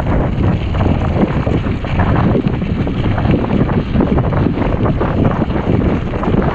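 Mountain bike riding fast over a gravel track: wind rumbling on the microphone over the crunch of tyres on loose gravel and the rattle of the bike.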